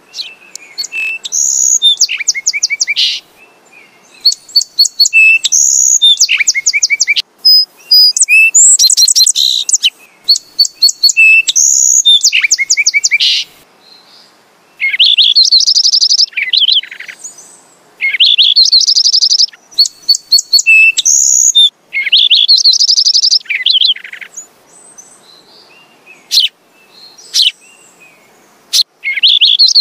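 Sparrows chirping in loud bursts of rapid, trilled chatter a few seconds long, with short gaps between bursts, thinning to scattered single chirps near the end.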